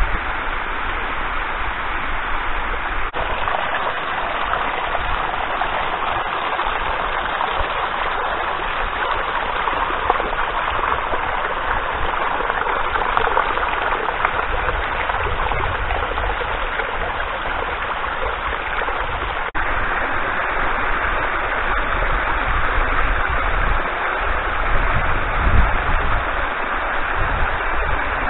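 Shallow spring water running and splashing down mossy travertine steps in a small cascade, a steady rush. The sound shifts slightly at two cuts, about three seconds and twenty seconds in.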